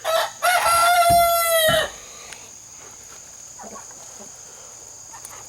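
Australorp rooster crowing once: a short opening note, then a long held call that drops in pitch at the end. Crickets chirp steadily behind it.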